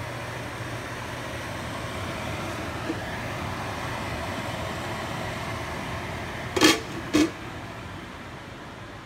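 A steady mechanical hum with a hiss over it, swelling slightly and then easing off. Two short, sharp knocks come close together about two-thirds of the way through and are the loudest sounds.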